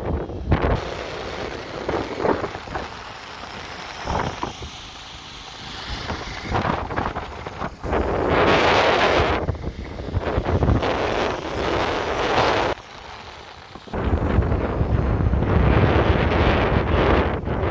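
Gusty wind buffeting the microphone, a rumbling rush that swells and fades, with a brief lull a little past the middle before it picks up again.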